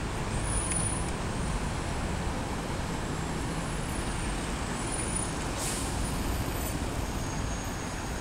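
Steady rumble of city street traffic mixed with a freight train of tank cars rolling across an elevated bridge, with a short air hiss about two-thirds of the way in.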